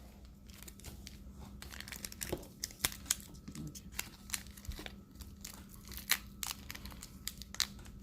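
Crinkling and crackling of a trading card pack's plastic wrapper as hands try to tear it open, in a string of short, irregular crackles.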